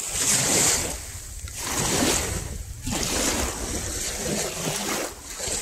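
Small lake waves lapping and washing over a pebble shore, swelling and falling every second or two, with wind rumbling on the microphone.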